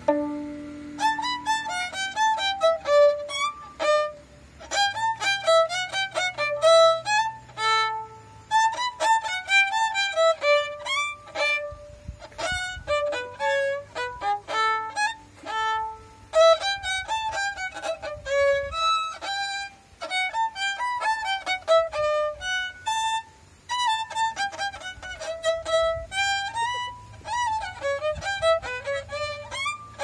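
Solo violin played by a young girl: a lively melody of quick bowed notes, in phrases broken by short pauses every few seconds.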